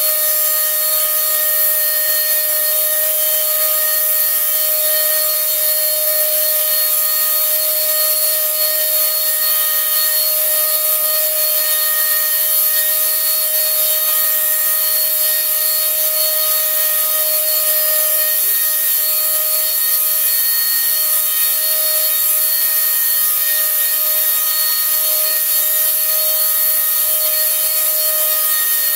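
Paint spray gun spraying wood stain: a loud, even hiss with a steady motor whine under it, unbroken throughout.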